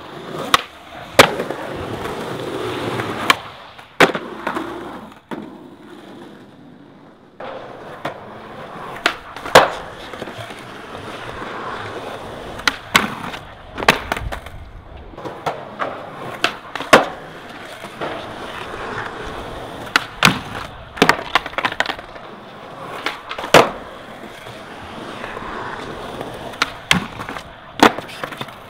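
Skateboard wheels rolling on concrete, broken many times by sharp clacks as the board's tail snaps and the board lands and hits the ground during flip tricks.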